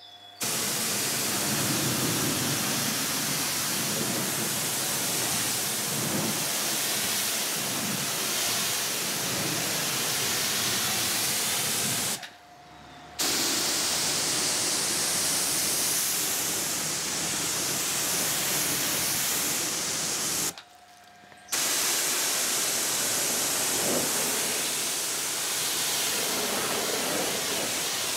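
Kranzle K7 pressure washer spraying, a steady hiss of water jetting onto car paintwork during the final rinse, cutting out twice for about a second.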